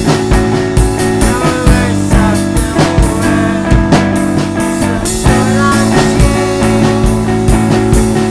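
Rock song: a drum kit keeps a steady beat under held guitar and bass chords.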